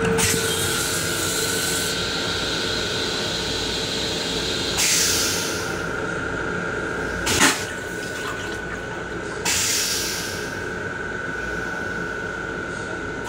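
LIRR M7 railcar toilet flushing after its push button is pressed: a hiss of rinse water at first, then rushes of water and air near five and ten seconds in and one short sharp whoosh about seven and a half seconds in as the stainless-steel bowl drains. The steady hum of the train runs underneath.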